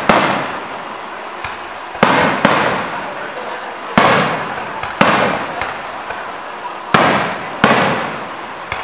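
Aerial firework shells bursting: about eight sharp bangs, one to two seconds apart, each trailing off over about a second.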